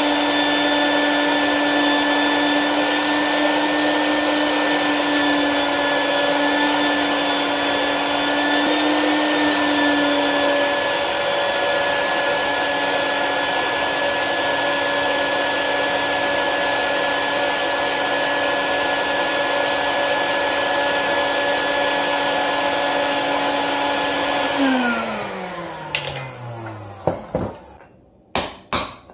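A bucket-top shop vacuum running steadily with a whine, its hose tube held down in drilled concrete anchor holes to suck out the dust. About 25 s in it is switched off and its pitch falls as the motor spins down, then a few sharp hammer taps follow.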